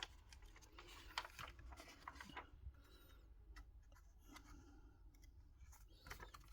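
Near silence with faint rustles and light clicks from the pages of an old Bible being handled.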